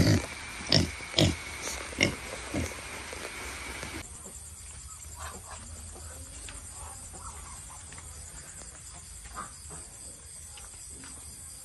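Hungry pigs squealing and grunting, a handful of loud, sharp calls about half a second apart in the first three seconds. About four seconds in the sound drops away abruptly to faint, scattered short animal calls.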